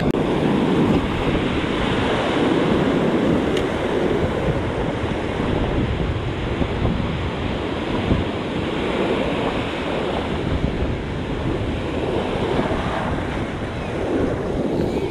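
Surf breaking and foamy wash rushing around the feet in shallow water, a steady dense rush of sea water, with wind buffeting the microphone.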